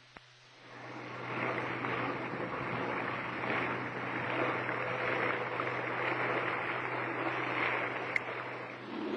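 Water rushing and hissing past the hull of a patrol boat running at speed, rising about half a second in and holding steady, over a low steady hum.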